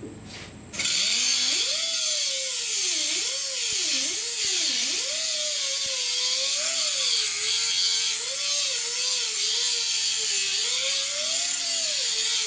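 Angle grinder cutting sheet steel: a loud, steady hiss of the disc on the metal, with the motor's pitch wavering up and down as it works. It starts about a second in.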